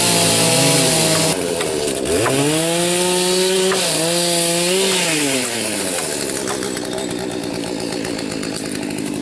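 Two-stroke chainsaw revved up high twice, held for a couple of seconds each time, then dropping back; after about six seconds it settles to a lower steady running speed.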